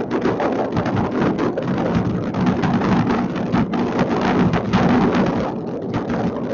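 Many distant fireworks going off across a city at once, merging into a continuous rumble of overlapping bangs and crackles.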